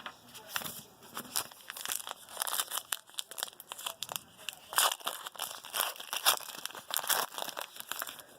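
Plastic foil trading-card pack wrapper being torn open and crinkled, a rapid irregular crackling.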